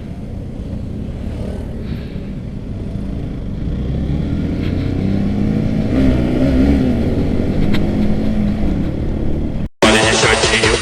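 Motorcycle engines running in traffic, with one engine's note rising and falling gently in the second half. The sound cuts off abruptly near the end.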